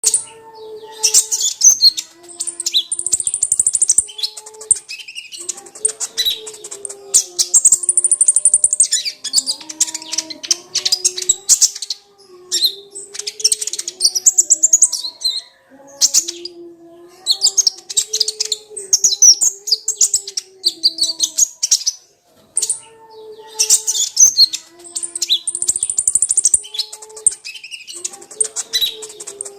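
Kolibri ninja sunbird song: phrases of rapid, high-pitched twittering and trilling a few seconds long, with short breaks between them, over fainter lower whistled notes.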